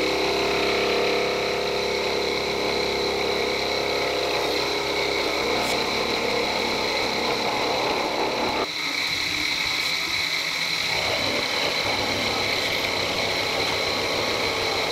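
Milling machine spindle running a small end mill through an F114 steel block: a steady high whine over the grinding noise of the cut. About nine seconds in, the lower cutting noise drops away suddenly, leaving mostly the whine.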